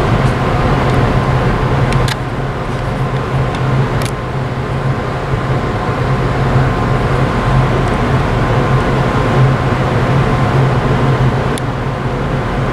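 Steady low machinery drone of ship engines and distant port machinery, under an even hiss, with a thin steady whine above it. A couple of faint ticks come through about two and four seconds in.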